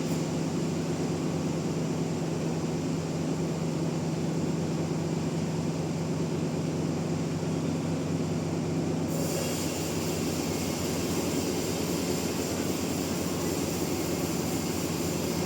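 Sawmill machinery running with a steady, loud hum; about nine seconds in, a high hiss suddenly joins and holds.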